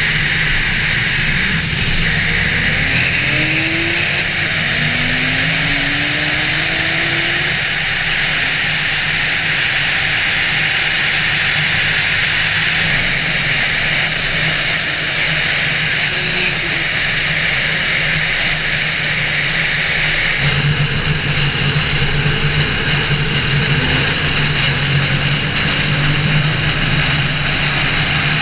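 A car cruising at highway speed: a steady engine drone under wind and road noise, with the engine note growing louder about two-thirds of the way through.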